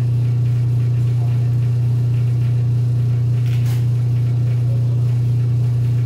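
Loud, steady low hum of running bakery machinery, unchanging throughout, with a faint click about three and a half seconds in.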